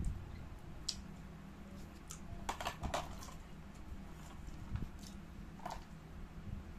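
Eating sounds from a man eating fried chicken with his fingers: scattered small clicks and smacks of chewing and handling the food, a few close together about two and a half seconds in, over a low steady hum.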